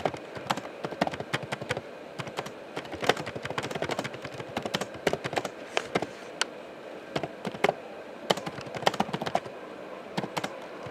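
Typing on a laptop keyboard: a quick, irregular run of key clicks.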